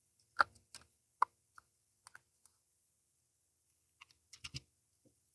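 Light, scattered clicks and taps of small guitar tuner parts (ferrules and tuners) being handled and pressed into the headstock holes. About seven in the first couple of seconds, a pause, then a quick cluster of clicks about four seconds in.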